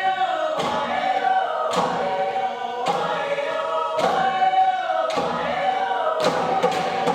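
A choir singing a chant, with a sharp thump keeping a regular beat about once a second.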